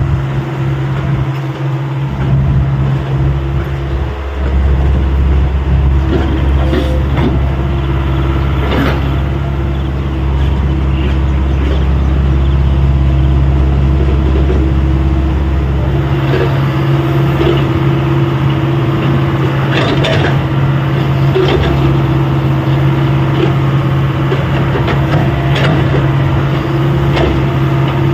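Excavator's diesel engine running steadily, with a few sharp metallic knocks; its deep low rumble eases about halfway through.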